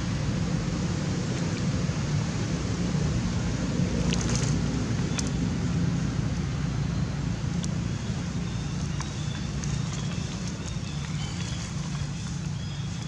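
Steady outdoor background noise, a low rumble under an even hiss, with a few faint clicks about four and seven seconds in.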